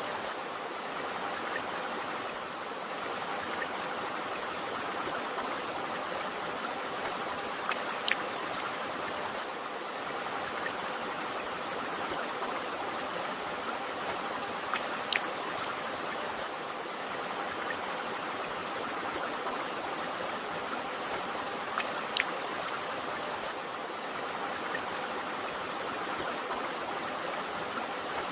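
Steady rushing of a flowing river or stream, with a brief sharp plink about every seven seconds.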